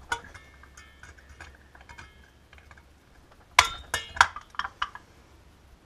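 A brake shoe return spring and needle-nose pliers clinking against a motorcycle's rear drum brake panel as the spring is stretched and hooked into place. Light metal clicks, with a cluster of sharper clinks about three and a half to five seconds in.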